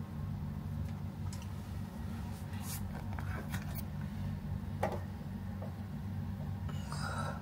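Steady low hum in a small enclosed pod, with a few light taps and clicks as a finger presses the touch buttons of the reading-light panel.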